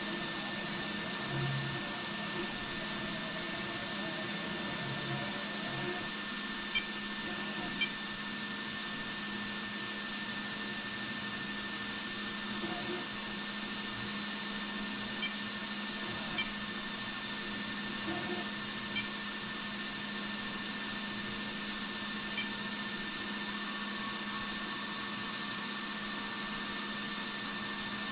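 Steady whirring hum with a thin high whine held at one pitch, and a few faint ticks scattered through it.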